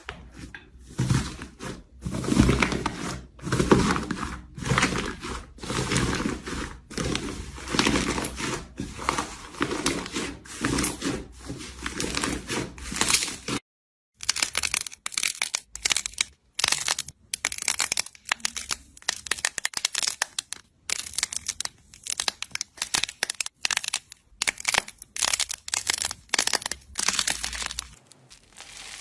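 Slime being squeezed and stretched by hand, making a quick run of crinkling, crackling squishes. It breaks off briefly about halfway, and after that the crackles come as sparser, sharper clicks.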